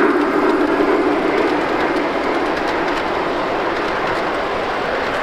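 G-scale model train rolling past on its 45 mm track, a steady running rumble with light clicking from the wheels on the rails. It is loudest at first as the locomotive passes and eases as the boxcars follow.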